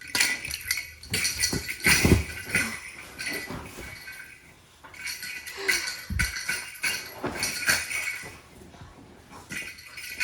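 A jingling cat toy with a small ball inside being chewed and shaken by a Rottweiler puppy: repeated jingles and clicks, with two dull thumps about two and six seconds in.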